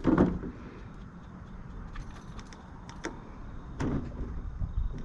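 A four-stroke push lawn mower being handled and tipped over to drain its overfilled oil: a clunk right at the start, then a few light clicks and knocks.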